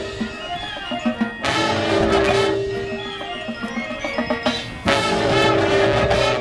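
High school marching band playing, with full brass chords about 1.5 s in and again about 5 s in, and quieter separate notes between them.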